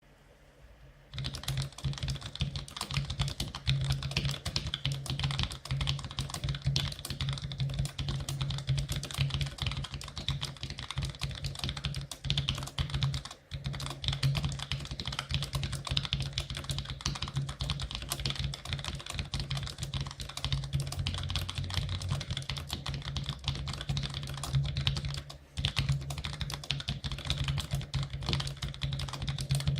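Fast, continuous typing on a Cherry G84-4100 compact keyboard with Cherry ML low-profile mechanical switches: a rapid clatter of keystrokes that starts about a second in and breaks off briefly twice.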